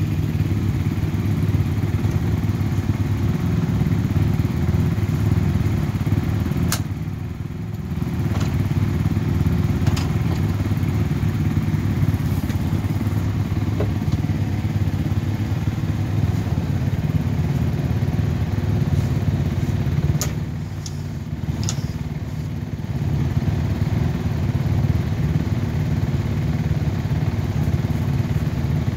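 Steady low mechanical rumble, with a few sharp clicks and knocks about seven seconds in, around ten seconds, and a cluster of them around twenty seconds in.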